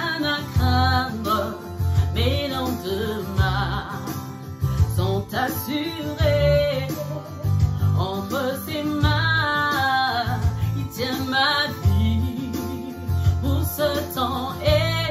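Church worship music: guitar and bass playing a song with a singer's voice over them.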